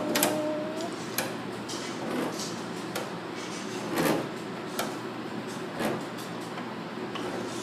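Knocks and scraping of a fluted pastry wheel and hands on a stainless steel worktable as ravioli are cut from a strip of filled pasta dough: irregular taps roughly a second apart over steady room noise. A short steady tone sounds in the first second.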